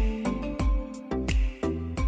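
Background music with a steady beat: deep kick-drum pulses and crisp percussion under sustained melodic notes.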